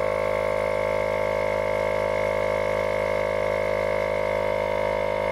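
Tower Top M2 12-volt portable tire inflator running while it pumps up a car tire: a steady, even motor-and-pump hum that holds one pitch throughout.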